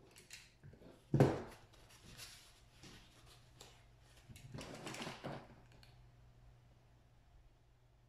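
Tabletop craft handling: a sharp knock about a second in, then paper plates rustling and scraping against the table for about a second, around five seconds in.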